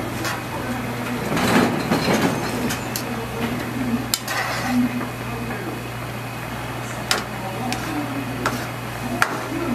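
Tongs stirring kalguksu noodles in a pan of boiling red broth: bubbling, with a sharp click of the tongs against the metal pan every second or few, over a steady low hum.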